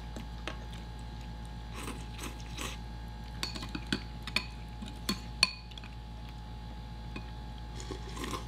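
Metal forks and spoons clinking and scraping against ceramic bowls as two people eat ramen, with a few brief noodle slurps. The clicks come irregularly, several a second at times.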